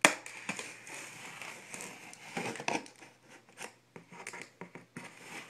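Folding knife slicing through the packing tape on a cardboard TV box, in irregular scratchy strokes, with the cardboard rustling and shifting as it is handled. A sharp knock sounds right at the start.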